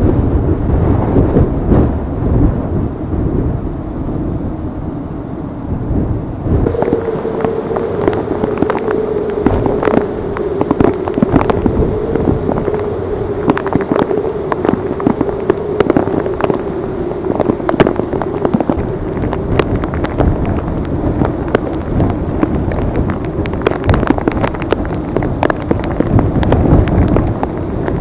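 Tropical-storm wind buffeting the microphone over rushing, splashing storm-surge water and rain on a flooded street. About seven seconds in, the low rumble drops abruptly; from then on rapid crackling clicks sound over a steady hum.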